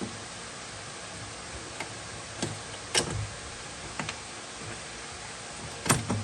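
Scattered sharp clicks and taps of small metal parts and hand tools being handled, the loudest about three seconds in and two close together near the end, over a steady hiss.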